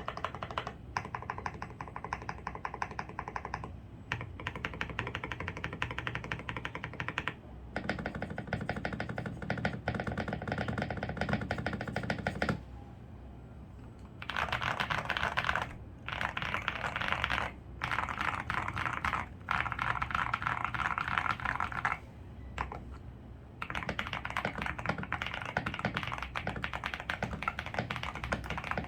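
Typing on an Akko 5075S mechanical keyboard with lubed Tecsee Purple Panda tactile switches and PBT keycaps, foam-modded for a deep "thocky" sound. Fast, continuous keystrokes come in runs of several seconds, with a pause of about a second and a half midway and a few shorter breaks.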